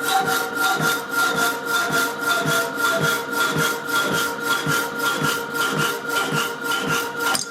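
Power hacksaw cutting metal bar stock: steady back-and-forth strokes, about two and a half a second, over the hum of its motor.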